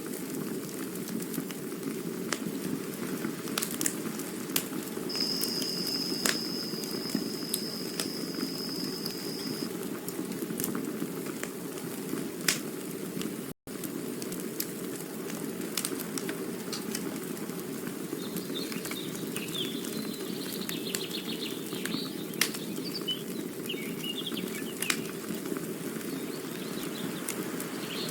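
Campfire burning: a steady low rumble with scattered crackles and pops. A thin high whistle holds for about four seconds near the start, bird chirps come in during the second half, and the sound drops out for an instant about halfway through.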